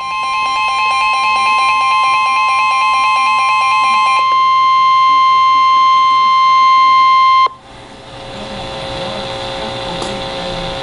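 Emergency alert warning tone: a loud, steady single tone of about 1 kHz, the weather-radio warning alarm, with a rapidly pulsing beep layered over it for the first four seconds. The tone cuts off suddenly about seven and a half seconds in, leaving a steady hiss.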